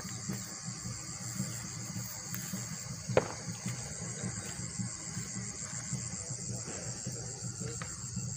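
Insects, likely crickets, chirring steadily in a high, finely pulsing band, with one sharp click about three seconds in.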